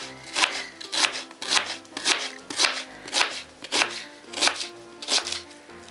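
Kitchen knife slicing through an onion onto a plastic cutting board, a steady chop about twice a second, each cut ending in a sharp tap on the board.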